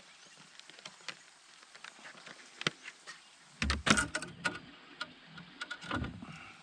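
Scattered clicks and knocks of fishing gear being handled on a boat, with two heavier thumps, a cluster about four seconds in and another about six seconds in.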